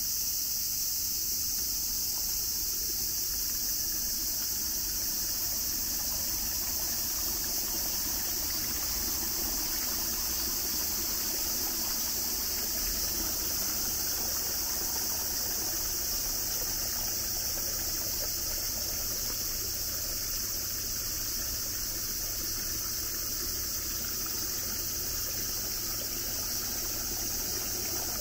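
Steady flow of a small stream trickling over stones, under a constant high-pitched drone of insects.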